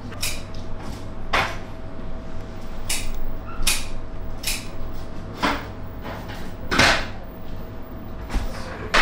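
Snack-bar kitchen work: short, irregular knocks and clatter, about one a second, over a steady hum of kitchen equipment.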